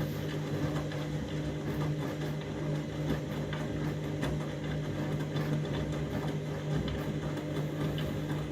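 Candy washing machine running with a steady motor hum and a scatter of light clicks and rattles. The drum is overloaded and full of suds, the condition behind a suds lock.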